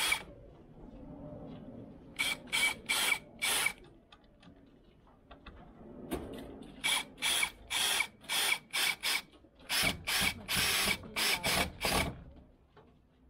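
Worx WU175 brushless cordless drill driver driving screws into wood in short stop-start bursts: four quick bursts about two seconds in, then a longer run of about a dozen from about seven seconds to near the end.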